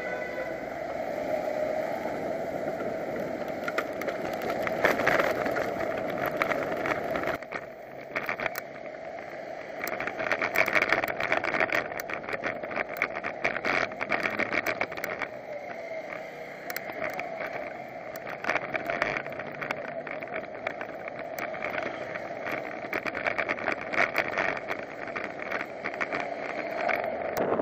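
A bicycle riding on city streets, heard from a bike-mounted camera: a steady rush of road and wind noise with frequent rattling clicks and knocks as the bike goes over the pavement. The sound changes abruptly about seven seconds in, where the footage cuts to another street.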